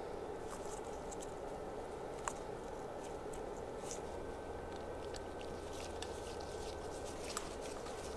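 Faint clicks and rustles of gloved hands handling a brake caliper, pressing the piston and rubber dust boot into the bore, over a steady background noise.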